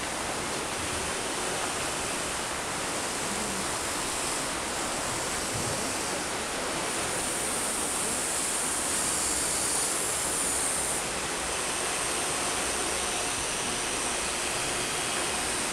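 Steady rushing of flowing river water. A faint high electric whine comes in for a few seconds in the middle, from the RC excavator's motors as its arm moves.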